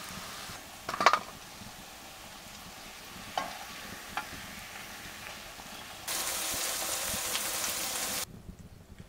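Food sizzling as it fries in a pan, stirred with a metal spoon that clinks against the pan a few times. About six seconds in the sizzling suddenly gets louder for about two seconds, then cuts off abruptly.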